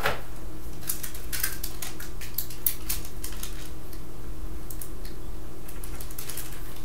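Scattered light clicks and rustles of objects being handled, over a steady low hum.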